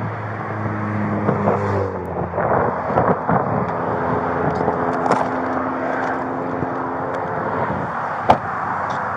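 Vehicle engines and road traffic running steadily, heard through a body-worn camera with clothing rustle and small clicks, and one sharp knock near the end.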